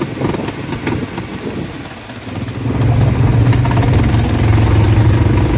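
ATV engine running, easing off about two seconds in, then picking up and running steadily louder through the rest.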